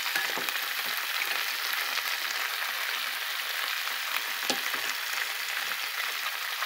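Beef, zucchini, bell pepper and onion sizzling in a hot frying pan as they are stirred with a wooden spoon. A steady frying hiss, with a couple of light knocks.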